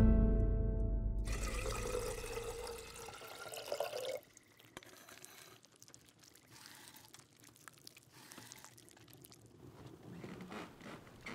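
A music cue ends on a deep low hit, then liquid pours for about three seconds, followed by fainter dribbling and small splashes.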